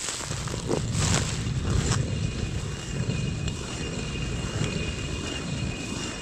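Hand-turned stone quern milling grain into flour: the upper millstone grinding round on the lower one with a steady, gritty rumble, a little louder in the first two seconds.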